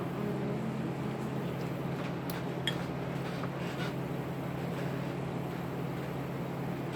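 A steady low hum runs throughout, with a few faint short clicks a little over two seconds in.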